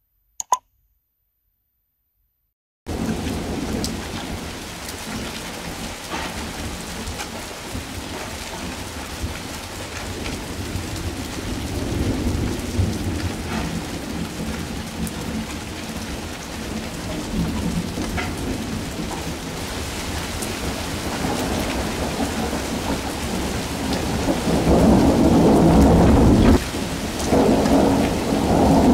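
Rain falling steadily with the low rumble of thunder, growing louder in the last few seconds. Before it, a single short click and a moment of silence.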